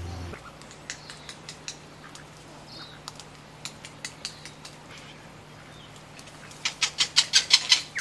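Kākā handling and chewing food at a feeder: scattered sharp clicks and taps, then a quick run of about ten louder clicks near the end.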